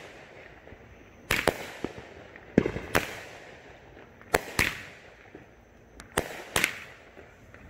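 Consumer aerial fireworks cake firing shells that burst overhead: sharp bangs in close pairs, four pairs roughly a second and a half apart.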